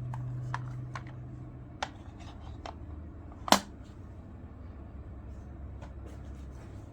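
Small clicks and light rustles from hands handling a sealed razor-blade packet, with one sharper click about three and a half seconds in, over a steady low hum.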